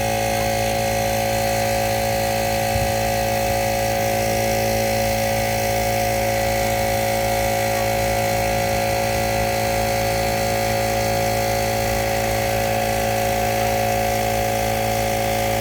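10-gallon McGraw air compressor running steadily with a constant motor-and-pump drone, filling a flat car tire.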